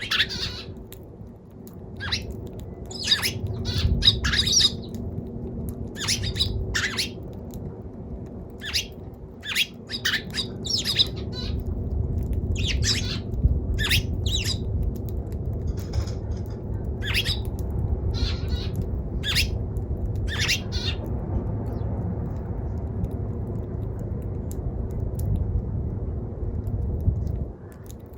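Eurasian tree sparrow giving a string of short, harsh chirps and squawks at irregular intervals. A steady low rumble sits underneath from about nine seconds in until shortly before the end.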